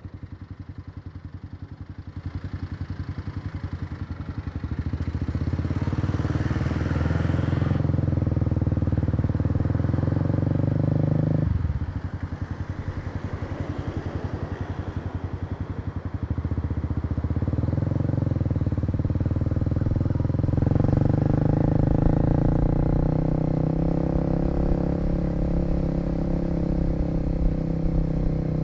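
Kawasaki KLX250's single-cylinder four-stroke engine running under way, heard from the rider's seat. The engine note climbs, falls sharply about eleven seconds in, then builds again.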